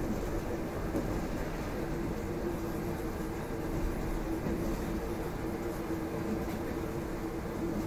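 EP2D electric multiple-unit train running between stations: a steady rumble of wheels on rails with a steady hum over it, heard from inside a carriage.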